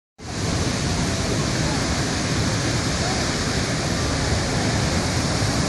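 Heavy surf from a large hurricane swell, waves breaking and washing in as a steady rush of white water with a deep rumble beneath it.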